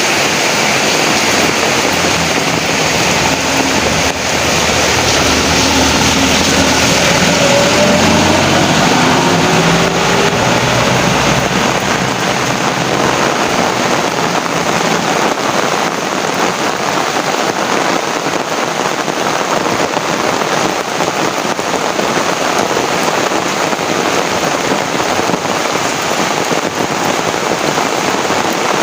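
Heavy rain pouring steadily. During the first ten seconds or so a motor vehicle passes, its engine note rising.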